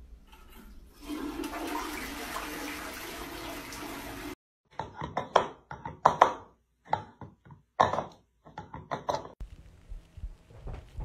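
Rushing water, like a flush, for about three seconds, cut off abruptly; then a series of short, irregular bursts of sound.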